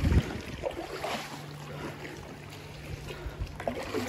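Kayak being paddled: water splashing and sloshing around the paddle and hull, with a low thump right at the start. A faint steady low hum runs through the middle.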